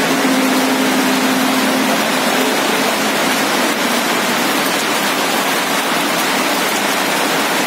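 Heavy rain and hail falling on a road, a steady hiss. For the first couple of seconds a passing backhoe loader's engine hums underneath, then fades out.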